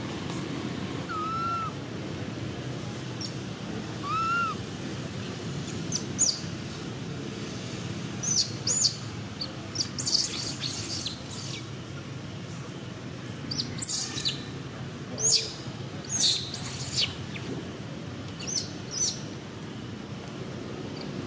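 Baby long-tailed macaque screaming: clusters of short, very high-pitched squeals from about six seconds in until near the end, over a steady low background hum. In the first few seconds a bird gives two short arched whistled calls.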